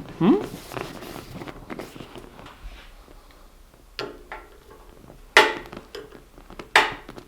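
Quiet handling and rustling from hands working seat upholstery, with three sharp clicks about a second and a half apart in the second half, and a short vocal sound just after the start.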